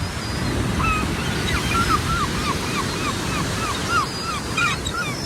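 Heavy surf breaking and rushing on the shore with wind, while a gull gives a long run of short, repeated calls, about two a second.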